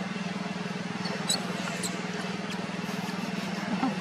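A steady low motor hum with a fast even pulse runs throughout. A couple of brief high squeaks come about a second in, from a baby long-tailed macaque.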